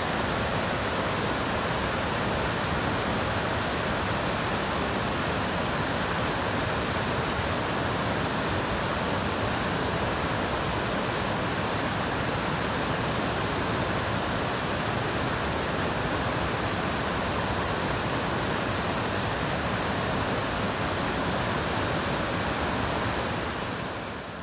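South Fork Snoqualmie River in flood, rushing white over boulders: a loud, steady whitewater rush that fades out near the end.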